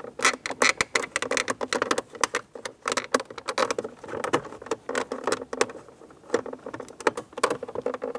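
Rapid, irregular clicking and rustling of plastic trim and wiring as a gloved hand works inside a dashboard opening.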